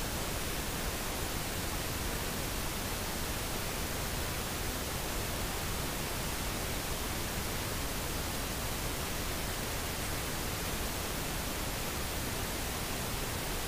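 Steady, even hiss of the recording's background noise, with no other sound.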